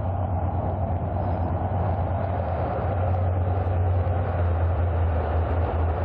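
V/Line A class diesel-electric locomotive running past at speed with its passenger carriages: a steady low engine sound over the rumble of the train rolling by, a little louder as it comes close.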